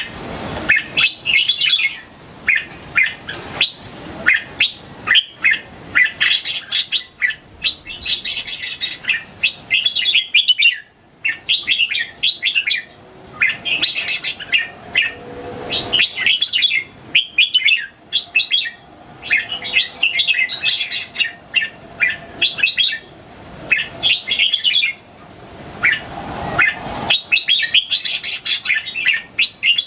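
Red-whiskered bulbul singing: short whistled phrases, one after another, with a couple of brief pauses.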